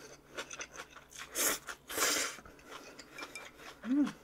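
Eating sounds over a bowl of rice noodle soup: small clicks of utensils against the dish, and two short airy bursts of mouth noise about a second and a half and two seconds in. A brief low hum from the eater comes near the end.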